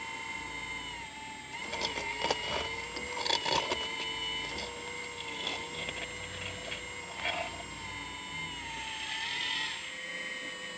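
Kabolite 970 RC hydraulic excavator's pump whining steadily, its pitch dipping and recovering as the boom and bucket take load. Clicks and crunches of the steel bucket scraping into soil come between about two and four seconds in, with a short rush of loose soil near the end.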